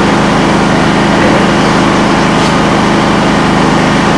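A loud, steady engine-like drone with a constant low hum that does not change.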